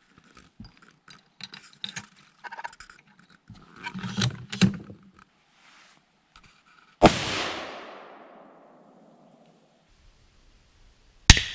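Metallic clicks and clacks of a cartridge being loaded and a bolt-action rifle's bolt being worked, then a single loud shot from a Savage Model 110 Precision in 6.5 Creedmoor about seven seconds in, its echo fading over a couple of seconds. Another sharp bang with a fading tail comes near the end.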